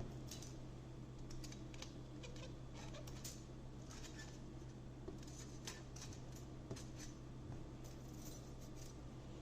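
Scattered light clicks and scrapes of thin sheet-metal parts being handled, as the tabs of a laser-bed blade are bent over with pliers and fingers, over a steady low hum.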